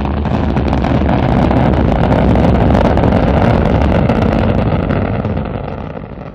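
Space Shuttle launch roar: a loud, steady rumble of the rocket engines and boosters that fades over the last second or so.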